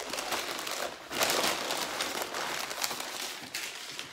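Sheets of white packing paper rustling and crinkling as they are wrapped around a drinking glass, loudest a little over a second in.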